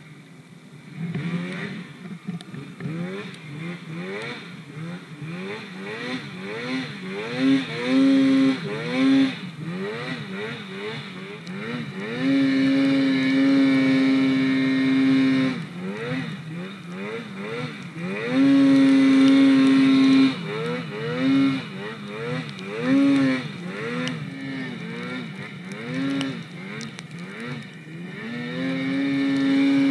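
Polaris RMK mountain snowmobile's two-stroke engine revving up and down over and over as it works through deep powder. It is held at high revs for a few seconds twice, around the middle of the stretch.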